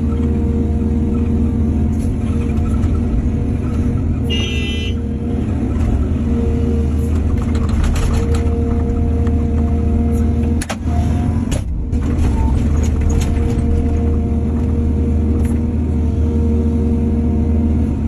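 Excavator's diesel engine running steadily under work, with a brief high-pitched squeal about four seconds in and scattered clanks. The sound drops out briefly twice, about eleven and twelve seconds in.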